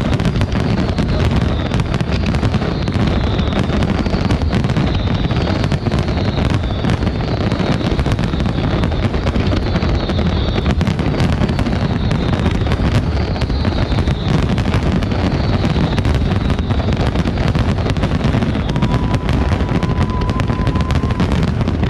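A dense fireworks barrage: continuous bangs and crackling over a steady low rumble, with high falling whistles recurring every second or two.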